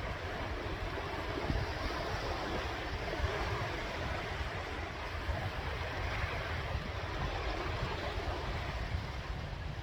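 Sea waves washing on the shore: a continuous surf noise with a deep rumble underneath, swelling a little around the middle.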